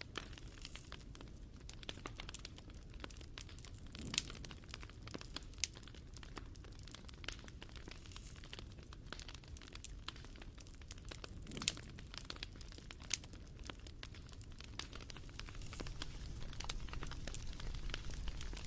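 Wood fire crackling: irregular small crackles and snaps over a steady low rumble, with a couple of louder pops.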